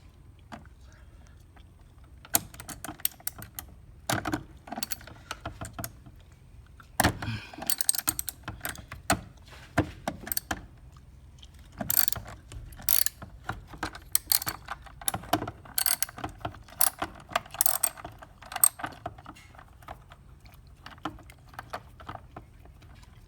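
Ratchet wrench with an extension and socket clicking in irregular short runs, with metal clinks, as the bolt holding the car battery down is worked loose.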